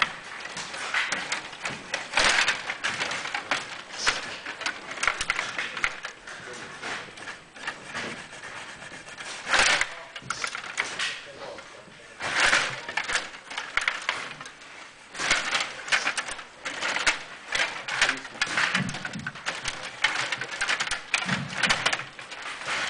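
Stiga Play Off table hockey game in fast play: quick, irregular plastic clicking and clattering as the control rods are pushed and twisted and the puck is hit against the figures and boards, with a few louder bursts of clatter.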